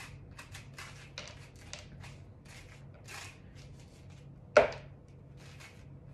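Metal ice cream scoop scraping the seeds and stringy pulp out of a halved spaghetti squash, a quick series of short scrapes, with one sharp knock a little past halfway through.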